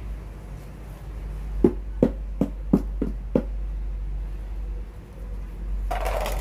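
Five sharp knocks in quick succession, about three a second, then a brief scraping rustle near the end, over a steady low rumble.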